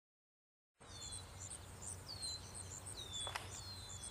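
Outdoor nature ambience of chirping birds and insects that starts about a second in: rapid high chirps repeating a few times a second, over repeated bird calls that slide down and level off. A steady low hum sits underneath, and a single sharp click comes about three seconds in.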